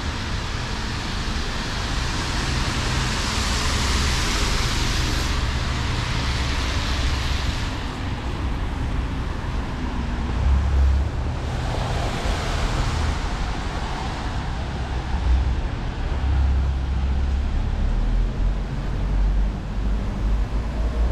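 City traffic on a rain-wet street: cars passing with tyre hiss on the wet road, two of them swelling up and fading, about two seconds in and again about eleven seconds in, over a steady low rumble.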